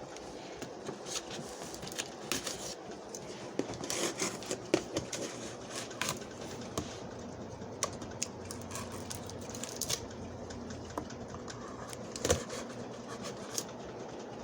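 Scattered clicks, taps and scratches of a cardboard box and its packaging being handled and opened, with a sharper knock about twelve seconds in.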